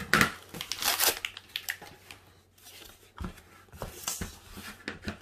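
Cardboard of a Priority Mail flat-rate box being torn open and rustled by hand, in irregular bursts with a quieter pause in the middle.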